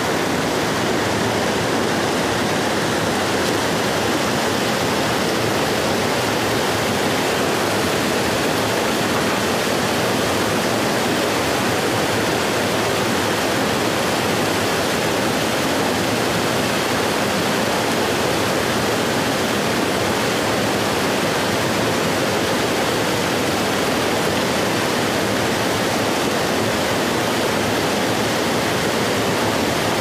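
Stream water rushing steadily close by, a continuous loud wash of flowing water.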